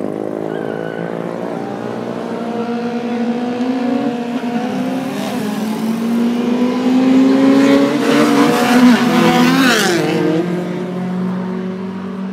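Street drag-racing engines revving and accelerating hard, their pitch climbing over several seconds. The sound is loudest about eight to nine seconds in as they pass, then fades.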